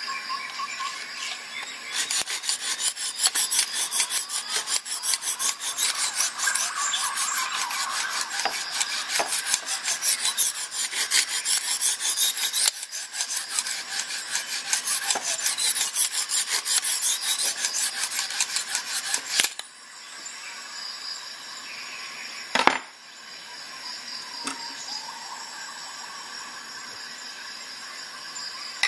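Lansky guided-rod sharpening hone stroked rapidly back and forth along a knife edge held in the clamp, a fast rasping rub of stone on steel that runs for about seventeen seconds and then stops. A few seconds after the strokes stop there is a single sharp click.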